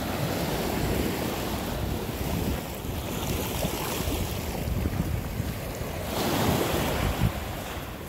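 Ocean waves washing onto the beach, with wind buffeting the microphone; a larger surge of surf swells up about six seconds in.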